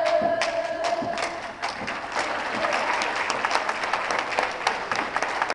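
A few sharp strikes and a held call in the first second and a half, then an audience applauding with dense, steady clapping.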